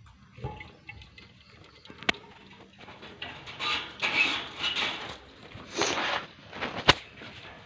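Budgerigars in a cage making a run of scratchy, rustling chatter, with a couple of sharp clicks.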